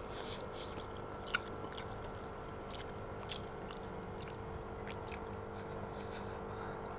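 A person chewing chicken noodles close to the microphone, with small, irregular wet mouth clicks and smacks, over a faint steady hum.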